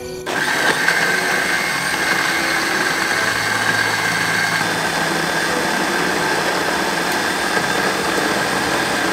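Panasonic countertop blender motor running at a steady speed, blades grinding a jar of shredded herbs into a yellow paste. It starts a fraction of a second in and runs with a steady high whine over a dense whirr.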